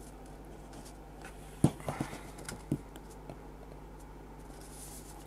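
A few light, sharp clicks and taps from hands handling test gear at an electronics bench, over a steady low hum. The loudest click comes first, with two or three smaller ones following within about a second.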